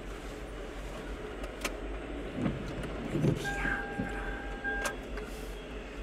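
CSX freight train's boxcars rolling past, a steady rumble and rush of wheels on rail with a few sharp clicks. Low thumps come around the middle, and a brief steady high tone sounds just after it.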